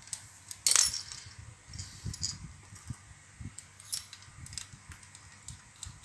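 A refrigeration manifold gauge set being picked up and handled: a sharp metallic clack a little under a second in, then scattered light clinks and knocks from its brass fittings and hoses.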